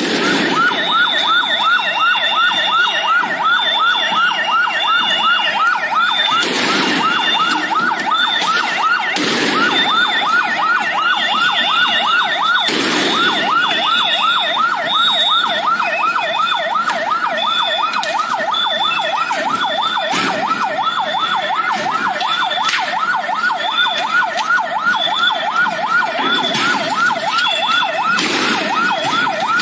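Police vehicle siren on a fast yelp, a rapid rising wail repeating about three or four times a second, with a higher tone sounding in short pieces above it. Several sharp bangs cut through it at intervals.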